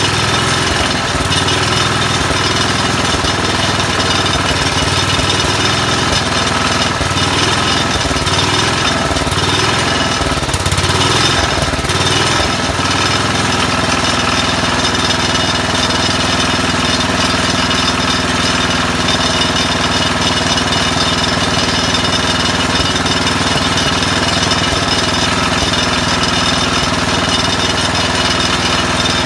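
Tecumseh HH120 single-cylinder cast-iron engine of a 1968 Sears Suburban 12 garden tractor running loudly and continuously, its ignition spark just restored. The note wavers a little, then settles steadier about thirteen seconds in.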